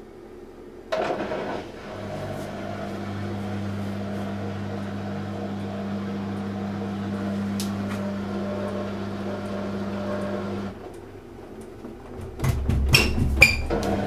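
Panasonic NA-168VG2 front-loading washing machine humming steadily for about ten seconds while it struggles to start its spin, then going quiet. About a second and a half later come several loud knocks and a low rumble.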